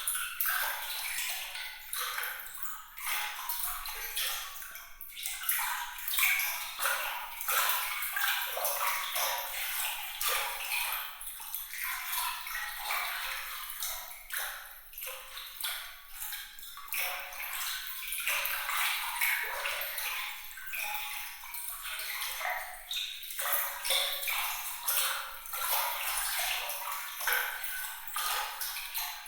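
Water trickling and splashing in a continuous stream of small, bright, tinkling droplets, high-pitched with no low rumble.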